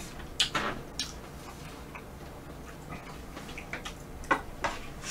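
Scattered wet clicks and smacks of a mouth eating ice cream, the loudest about half a second in. Near the end a wooden spoon scrapes and taps against the pan as melted ice cream is scooped up.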